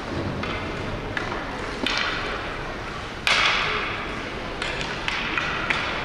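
Ice hockey play on a rink: skate blades scraping and carving the ice in several sudden hissing sprays that fade out, the loudest about three seconds in, with a few sharp knocks of sticks and puck.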